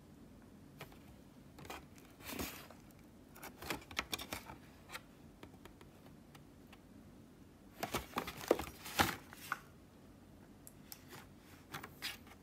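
Cardboard box being handled and its flap opened: scattered taps, scrapes and rustles of the card, in two bursts a couple of seconds in and about eight seconds in, the second the loudest.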